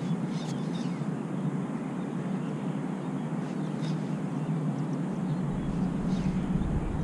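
Steady low rush of flowing river water, with a few short high chirps over it. A low rumble joins about five seconds in.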